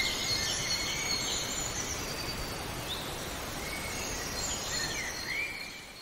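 Outdoor ambience: birds chirping and whistling in short repeated calls over a steady rushing hiss, fading out near the end.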